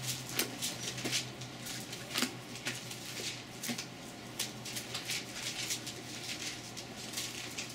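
Thin Bible pages rustling and flicking as they are leafed through, in quick irregular strokes, over a steady low hum.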